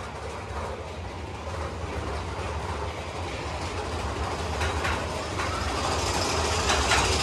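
Big Thunder Mountain Railroad mine-train roller coaster running on its track, heard from aboard the car: a steady rumble of the wheels that grows louder toward the end, with a few sharp clacks about two-thirds of the way through.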